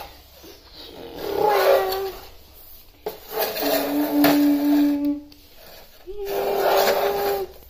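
A person's voice making three drawn-out wordless vocal sounds, each ending on a held pitch and carried on breathy noise, with short pauses between them.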